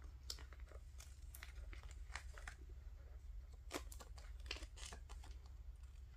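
Faint, irregular rustling and light clicks of paper flower stickers being picked out of a clear plastic storage case and handled, over a low steady hum.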